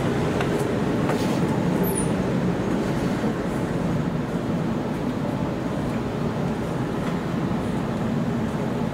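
Inside the upper deck of a Sydney Waratah A set double-deck electric train under way: a steady low rumble of the running train, with a few faint clicks in the first second.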